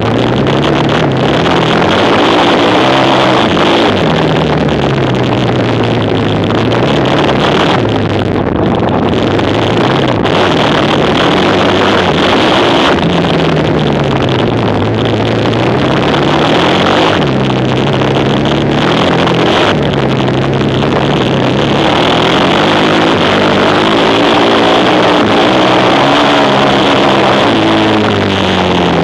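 Quad bike engines at racing speed, their pitch rising and falling again and again as they rev up and back off. Near the end several engines overlap at different pitches.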